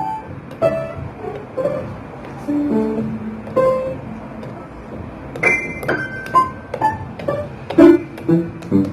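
Toy piano played one note at a time: single pitched notes plinked at uneven intervals, picking up into a quicker run of notes in the second half.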